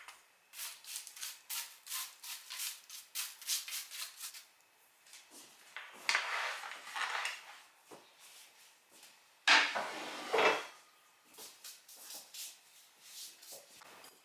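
Kitchen food-prep handling: a quick run of clicking, scraping strokes, then two longer rattling, rustling stretches like dry ingredients being stirred or shaken in a bowl, with scattered small clicks after.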